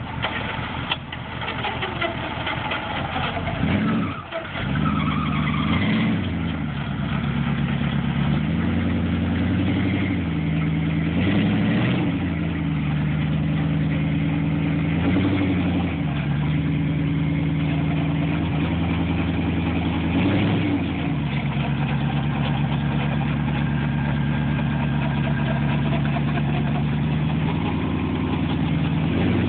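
Dodge pickup's engine starting about four seconds in, then revved up and back down about five times as the truck works through deep mud, and running at a steady speed for the last third.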